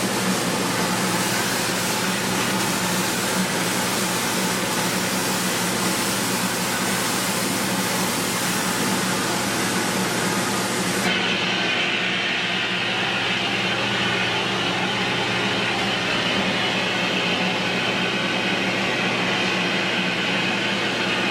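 A spray rig applying water-based lacquer to a drum shell. A steady motor hum runs under a hiss of spraying air, and the hiss cuts off about halfway through while the motor keeps running.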